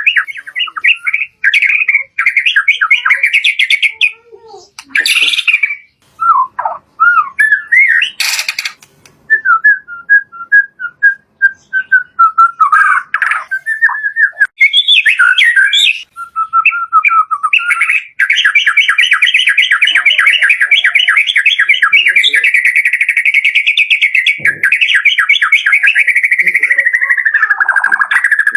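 White-rumped shama (murai batu) singing a varied song of whistled notes and quick chattering phrases. From about two-thirds of the way in, it holds one long, fast trill that drops in pitch near the end.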